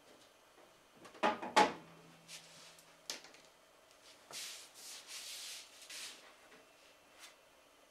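Hands handling a PC tower case: two sharp knocks about a second in and a click, then a rubbing, sliding scrape lasting nearly two seconds, and a light click near the end.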